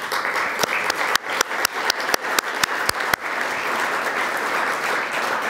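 Audience applauding. Distinct sharp claps stand out over the first three seconds, then the clapping merges into a steady, even wash.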